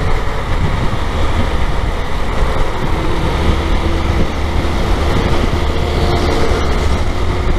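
Motorcycle riding at speed in traffic: a steady rumble of wind noise and engine, joined by a faint steady tone about a third of the way in as it runs alongside a semi-truck.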